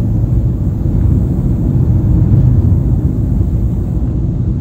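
Steady low rumble of a moving car heard from inside the cabin: tyre, road and engine noise with no distinct events.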